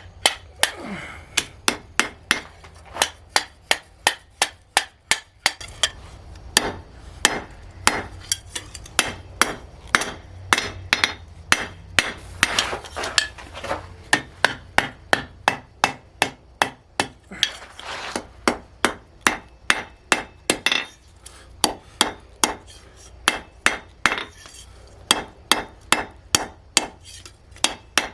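Blacksmith's hammer striking steel on an anvil in a steady run of blows, about two to three a second, each with a short ring.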